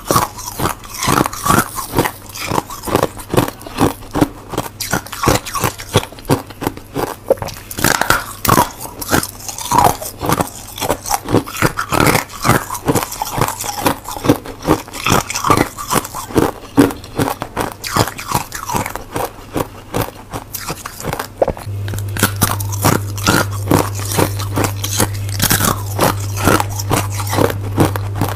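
Crunchy biting and chewing of packed freezer frost and thin frozen ice spikes, heard close up as many rapid crisp crunches. A low steady hum comes in strongly about three quarters of the way through.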